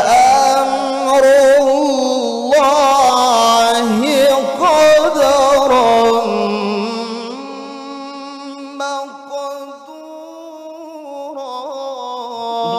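A man's voice reciting the Quran in the melodic tilawah style into a microphone: long ornamented phrases with wavering melismas. The voice is loud for the first half, then holds a long drawn-out phrase that grows softer, swelling again just before the end.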